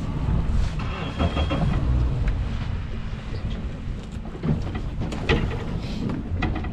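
Wind buffeting a microphone on a small boat at sea, a steady low rumble, with a few sharp knocks in the second half.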